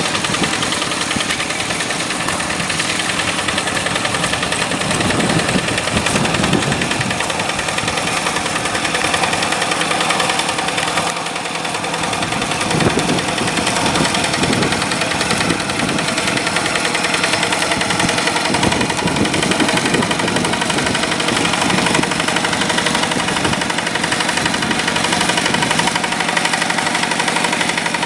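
Yanmar diesel engine of a paddy-field tractor running steadily with a rapid knocking beat, its low note swelling several times as the load changes.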